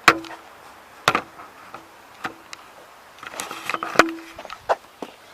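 Sharp metallic clanks and knocks, about five spread over a few seconds, several leaving a brief ringing tone: metal wheel parts and tools knocking together while a spare wheel is fitted onto the hub.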